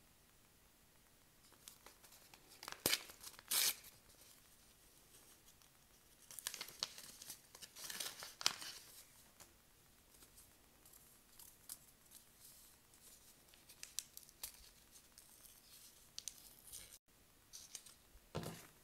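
Paper seed packets being handled and torn open: crinkling of a petunia seed packet and tearing of its small white paper inner seed sachet, in several short bursts with quiet stretches between.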